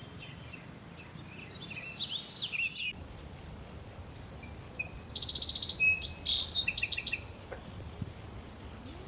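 Birds chirping and calling over faint outdoor background noise, with quick repeated trills between about five and seven seconds in.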